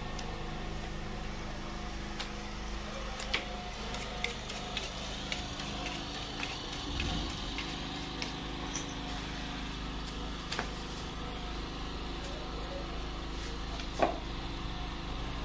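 Knives and a meat cleaver cutting raw meat on a wooden block: scattered sharp knocks and clicks of the blades, the loudest near the end, over a steady low hum.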